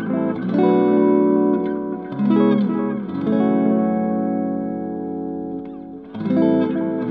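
Electric guitar chords played through a mini effects pedal. Four chords are struck, near the start, at about two seconds, just after three seconds and near six seconds, each left to ring out.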